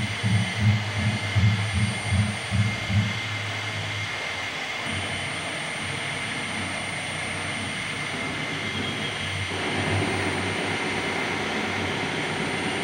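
Gallery sound-installation audio. A low hum pulses about twice a second and stops about three seconds in. A steady, noisy hum follows and grows fuller about ten seconds in.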